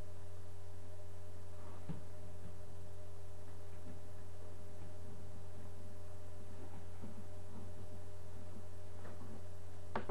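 Steady low electrical hum with faint steady tones above it. A few faint taps come through it, the sharpest near the end, as the kittens' paws strike the TV screen and its glass stand.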